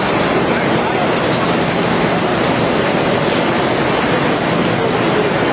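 IBIS Smart-binder finishing line running in line with a Buhrs BB700, a loud, steady, even mechanical noise without pauses.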